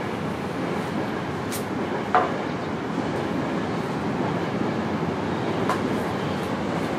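Steady rumble of passing traffic, with one short sharp sound about two seconds in.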